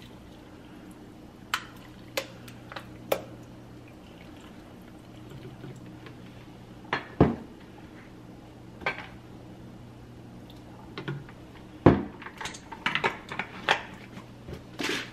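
Scattered clinks and knocks of a drink bottle and kitchen containers being handled and set down on a counter, with a few louder knocks about 7 and 12 seconds in and a quick run of clicks after that, over a faint steady hum.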